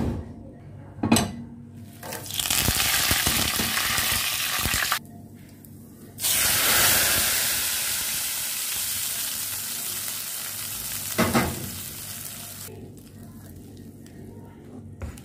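Hot-oil tempering of cumin seeds, curry leaves and dried red chillies sizzling loudly in the kadhi: one burst that cuts off suddenly after about three seconds, then a second that slowly dies away. A few sharp utensil knocks as well, at the start, about a second in and near the end of the sizzling.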